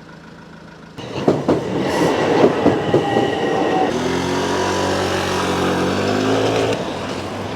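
Train passing through a railway station: a loud rush of wheel noise with clicks starts about a second in, then a steady low hum takes over for a few seconds before easing off near the end.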